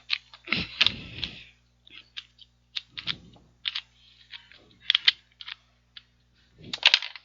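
Rubik's brand 2x2x2 cube being turned rapidly by hand during a speedsolve: a quick, irregular run of plastic clicks and clacks as the layers snap round, with denser flurries about half a second in and near the end.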